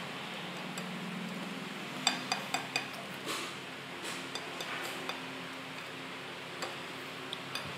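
Light clicks and taps on a ceramic plate of fried potatoes, four quick ones about two seconds in and a few fainter ones later, over a steady background hum.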